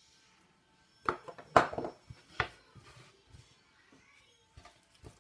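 Kitchenware being moved on a bamboo cutting board, with a plastic cutting board and a stainless steel bowl shifted and set down. There is a short cluster of clattering knocks about a second in, then a couple of light taps near the end.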